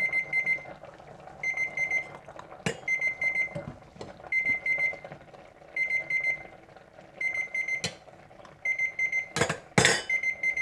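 Electronic alarm beeping in groups of four quick high beeps, one group about every second and a half. A few sharp knocks, the two loudest near the end, come as hot jam is poured from the pot into a stainless steel canning funnel.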